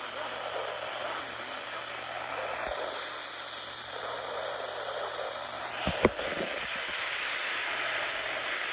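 Radio receiver static: a steady hiss with one sharp click about six seconds in.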